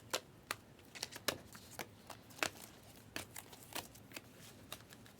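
Trading cards being handled and flicked through by hand: a run of irregular, sharp card clicks and snaps, a couple every second.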